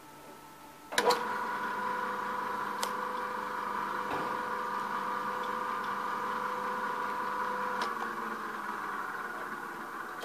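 Hobart A200 planetary mixer switched on with a click about a second in, its motor and gear drive running with a steady whine. Near the end another click as it is switched off, and the sound dies away as it coasts to a stop.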